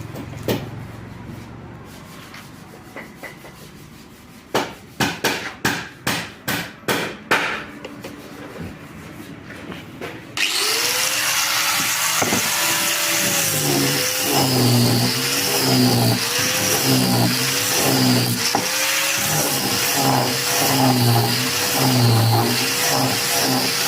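A quick series of sharp knocks, then an angle grinder fitted with a home-made wooden sanding disc starts up suddenly about ten seconds in and keeps running loudly, its pitch dipping and recovering again and again.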